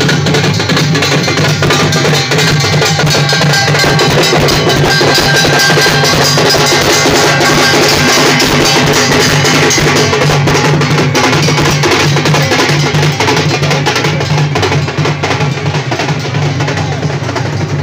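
Loud, fast drumming with other instruments, played without a break, over a steady low drone.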